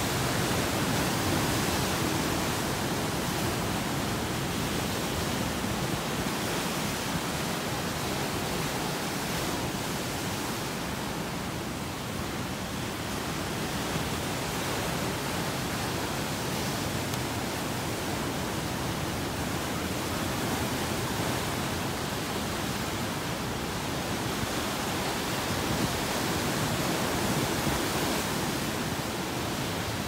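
Ocean waves breaking over rocks: a steady rush of white water that swells and eases gently.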